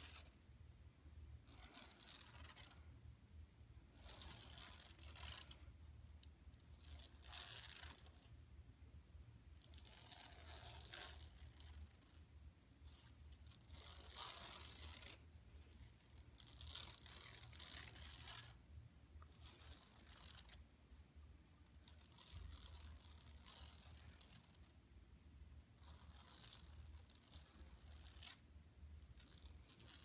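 Long natural fingernails scratching across a shopping bag, in spells of a second or two with short pauses between, about a dozen in all.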